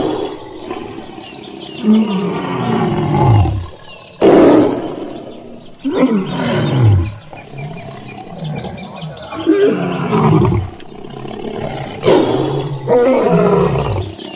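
A big cat roaring, about six roars in a row, each starting loud and falling in pitch.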